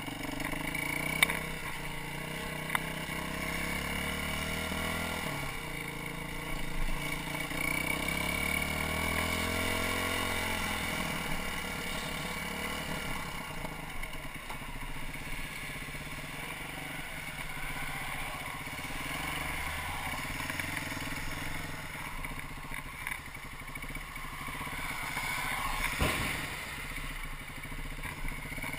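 Single-cylinder four-stroke engine of a BM Motard 200 supermoto running, its revs rising and falling, with a sharp click about a second in and a louder knock near the end. The engine has developed a ticking of unknown origin, along with stumbling pull and wandering revs.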